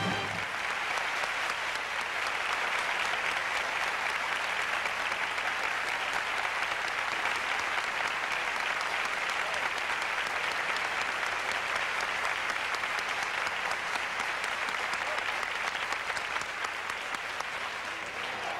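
Large theatre audience applauding steadily, the clapping easing slightly near the end. The orchestra's last held chord breaks off just at the start.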